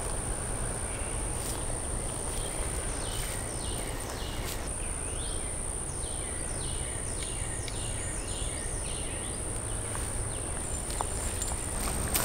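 A steady high-pitched insect trill, with a bird singing a run of short, repeated downward-slurred notes from about three seconds in until about nine seconds in.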